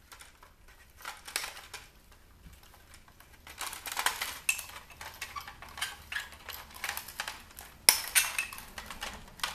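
Irregular clicks, clinks and light rattles of small metal and plastic parts being handled and pulled apart in a CD changer being dismantled, with a sharp, louder clink about eight seconds in.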